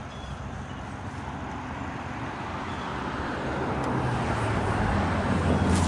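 A road vehicle approaching, its engine hum and tyre noise growing steadily louder over the last few seconds.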